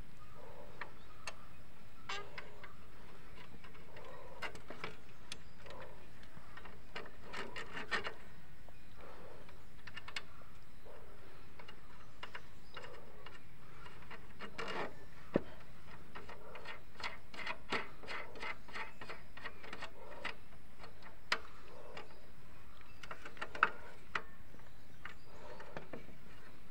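Small metallic clicks and light rattling as the CB Unicorn's rear brake rod, its coil spring and the adjuster nut are handled and threaded together by hand at the brake arm. A few sharper clicks stand out, about 8, 15, 21 and 24 seconds in.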